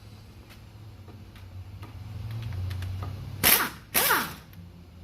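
Two short bursts from a power tool about three and a half and four seconds in, as it works one of the 14 mm bolts that hold the front hub of a Mazda 6.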